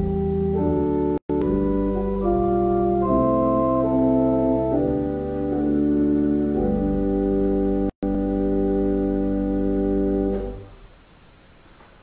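Organ playing slow, sustained offertory chords, with two brief dropouts in the sound. The last chord is released about ten and a half seconds in, leaving faint hiss.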